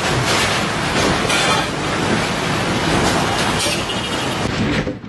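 Storm winds and driving rain from a severe thunderstorm or tornado rushing against a building's glass front, heard from inside, as a steady loud noise with a few stronger gusts. It breaks off briefly near the end.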